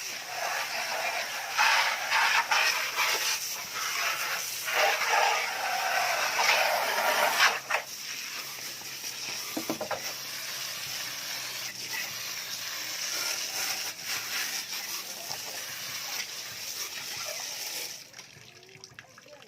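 Water spraying onto a window-type air conditioner that is being cleaned. The spray is heavier and uneven for the first seven or so seconds, runs steadier after that, and cuts off shortly before the end.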